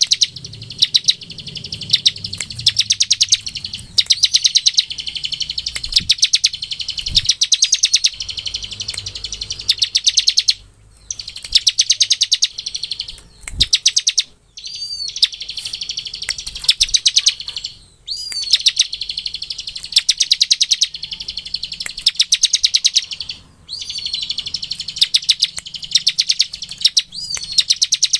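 Bar-winged prinia (ciblek) singing its rattling 'ngebren' song: burst after burst of very fast, dry ticks, each about a second long with short breaks between. Some bursts open with a short curling whistle.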